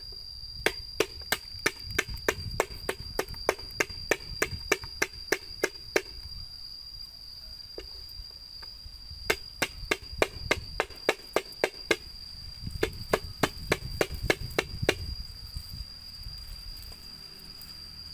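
Knife chopping on a cutting board in quick, even strokes, about three a second, in three runs separated by short pauses. A steady high insect trill runs underneath.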